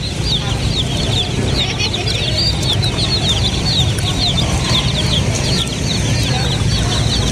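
A flock of domestic chicks peeping nonstop, many short high cheeps overlapping one another, over a steady low hum.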